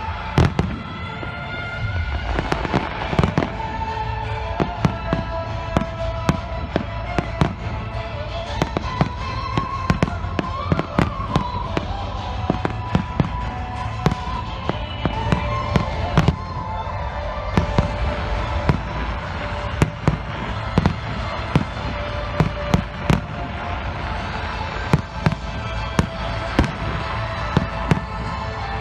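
Aerial fireworks shells bursting in many sharp bangs at irregular intervals, some in quick clusters, with music playing underneath.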